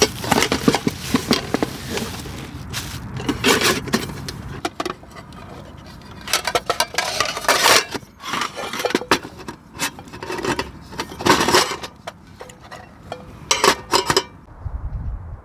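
Camping cookware being handled: a mesh drawstring bag rustling as a frying pan is pulled out of it, then the pan and its lid clinking, knocking and scraping in short clusters.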